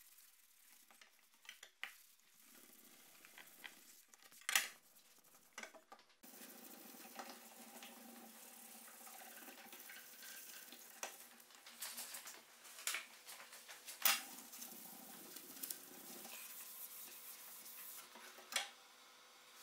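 A cotton pad rubbed back and forth along a steel machete blade, polishing it by hand: a soft rubbing hiss with scattered sharp clicks and taps.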